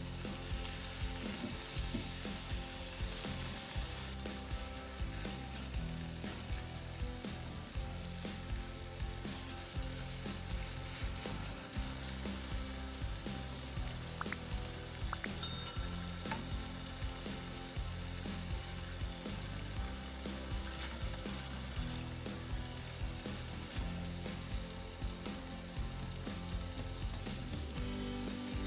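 Marinated chicken pieces sizzling steadily as they fry in oil in a nonstick pan, with a silicone spatula pushing them around near the end.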